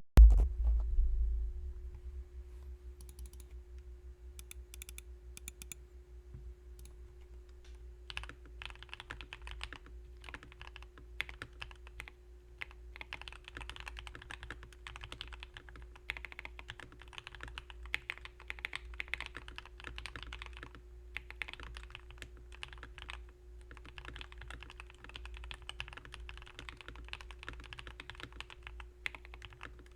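Typing on a Rakk Ilis mechanical keyboard fitted with lubed Akko CS Vintage White linear switches. It opens with a loud low thump, then a few scattered keystrokes, and about eight seconds in settles into steady, fast typing with a couple of brief pauses. A faint steady hum runs underneath.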